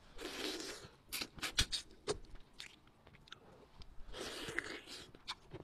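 Close-up eating sounds of a braised rabbit head being torn apart and eaten: quick wet mouth clicks and smacks of chewing, with two longer breathy stretches, one at the start and one about four seconds in.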